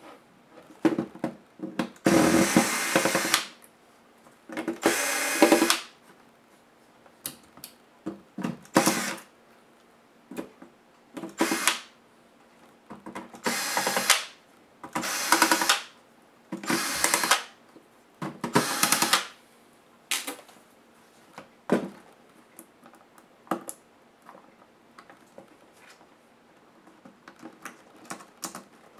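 Cordless electric screwdriver running in about eight short bursts of a second or so, backing screws out of a laptop's top case. Light clicks and knocks of handling fall between the bursts.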